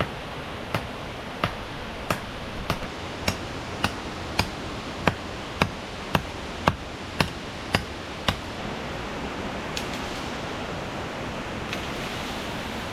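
About fifteen regular chopping strikes of a hand tool, roughly two a second, that stop about eight seconds in, over the steady rush of a waterfall.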